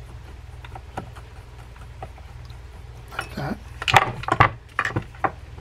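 Small metal parts and screws of a large saltwater fishing reel being handled during reassembly. A few light clicks are followed, from about three seconds in, by a cluster of louder metallic clinks and knocks. A steady low hum runs underneath.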